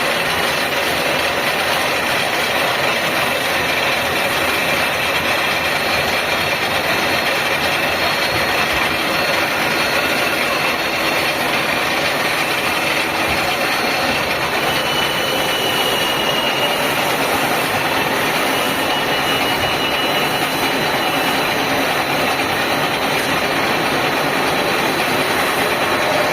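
Facing and centring machine running with a steady mechanical noise and a faint high whine.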